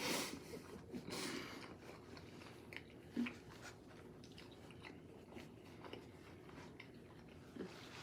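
Faint chewing and biting into a crispy fried chicken sandwich, with scattered small crunches and mouth sounds.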